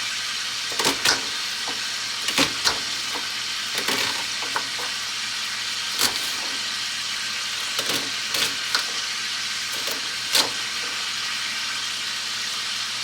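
Chicken breasts sizzling steadily in a cast iron skillet, with irregular sharp knocks of a knife on a cutting board as onions are diced, about ten over the stretch.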